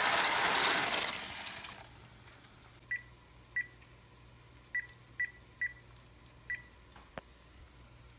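Dry rotini pasta poured from a cardboard box into a pot of boiling water, a rushing noise that fades out within two seconds. Then six short, high beeps from a microwave's keypad as its timer is set for ten minutes, followed by a single click.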